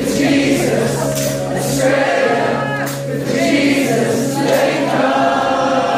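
Live worship music: a band plays a held low chord while voices sing drawn-out phrases over it, and the chord changes about five seconds in.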